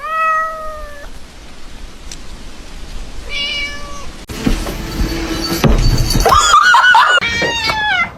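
Cat meowing several times, with a quick run of short wavering meows about three-quarters of the way through, and a low noisy rumble in the middle.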